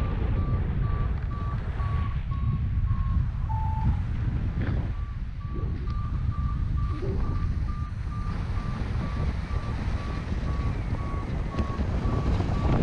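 Paragliding variometer giving a steady run of short, high beeps, the sign of the glider climbing in lift, over steady wind noise on the microphone. The beeps break off briefly about four seconds in, then carry on.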